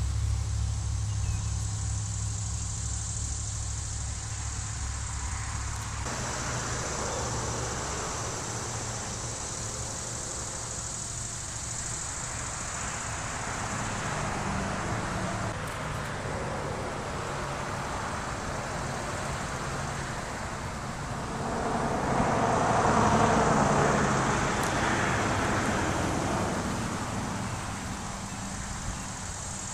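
Road traffic: vehicles passing one after another, each a rise and fall of tyre and engine noise, the loudest passing about two thirds of the way through. A low steady engine-like hum sounds for the first few seconds, then stops.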